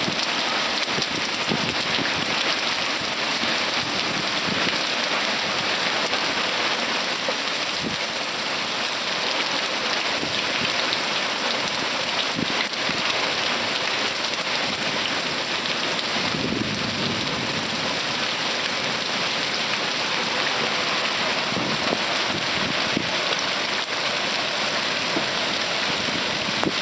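Heavy rain pouring down in a violent thunderstorm, a steady dense hiss of rain on surfaces, with a low rumble about sixteen seconds in.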